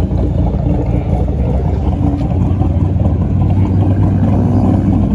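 Black Chevrolet Camaro's engine and quad-tip exhaust rumbling loud, deep and steady as it rolls slowly away across the lot.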